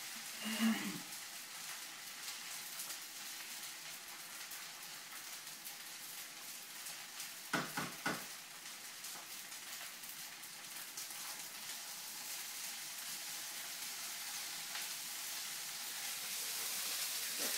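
Fried rice sizzling steadily in a hot pan, with two sharp knocks of a utensil against the pan about eight seconds in.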